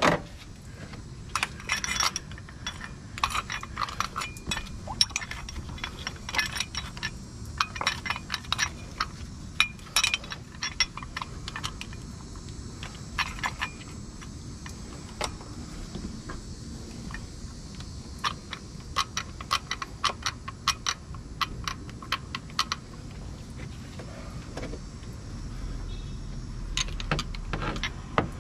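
Ratchet and socket clicking and clinking in irregular clusters of sharp metal ticks while loosening a thermostat housing bolt deep in an engine bay.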